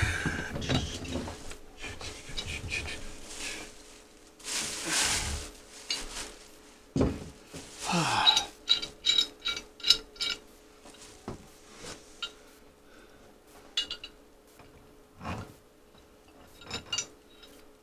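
Metal tools and pipe fittings clinking and scraping as they are handled, with a quick run of ringing metallic clicks about halfway through. A faint steady hum sits underneath.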